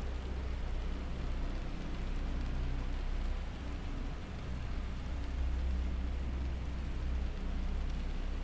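Binaural-beats meditation audio: steady low droning tones under an even bed of rain-like noise.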